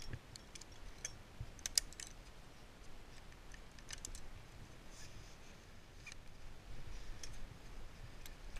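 Faint, scattered clicks and light rattles of climbing and rigging hardware while the speedline is being pulled tight.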